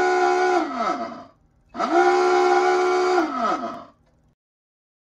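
Two long blasts of a submarine diving-alarm klaxon. Each swoops up in pitch at the start, holds, then sags as it dies away; the second blast begins just before two seconds in and ends about four seconds in.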